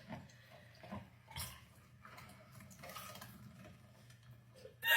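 Raw meat squishing wetly as it is forced through a meat grinder, with soft clicks and squelches over a low steady hum. A short loud vocal sound comes right at the end.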